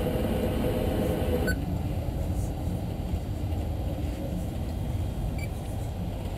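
Steady low rumble of machinery. A fainter hiss stops about a second and a half in, and two faint short beeps come through.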